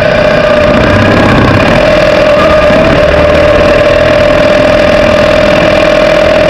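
A vehicle's engine running at a steady speed, very loud and close to the microphone, with a constant high tone over the engine noise and no revving.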